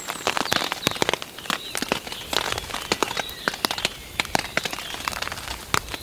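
Rain on a tarp shelter: a steady hiss of rainfall with irregular drops tapping sharply on the fabric overhead.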